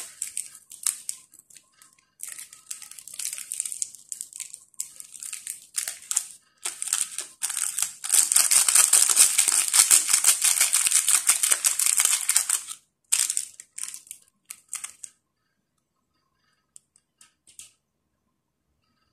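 Plastic instant-noodle seasoning sachets crinkling and tearing in the hands as they are opened and squeezed out, in short bursts with a long unbroken stretch of crinkling about halfway through, dying away to a few faint rustles near the end.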